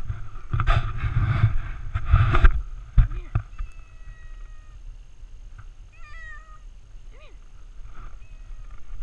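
Tabby cat meowing several times, short pitched calls, some held flat and some wavering. A loud rush of noise covers the first two and a half seconds.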